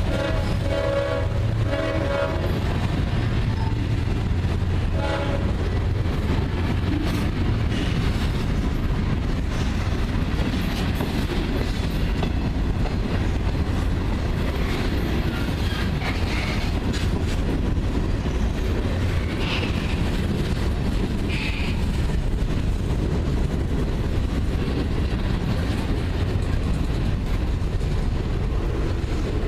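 Horn of a Ferromex GE ES44AC diesel locomotive sounding a chord that cuts off about two and a half seconds in, with one short blast about five seconds in. After that, the steady rumble and clickety-clack of freight cars rolling past, with a few brief high squeals.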